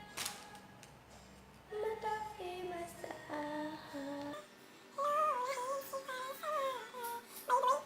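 A high voice singing a melody with held, wavering notes, starting about two seconds in after a quiet start.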